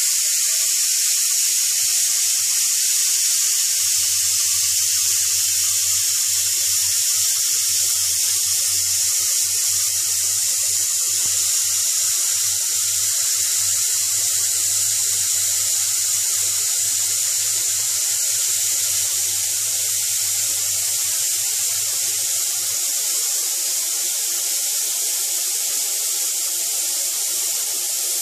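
Vacuum cleaner running with its hose on the valve of a Compactor vacuum storage bag, drawing the air out of a bag of clothes as it compresses. It makes a steady, loud, high airy hiss, with a low hum underneath that drops away a little over three-quarters of the way through.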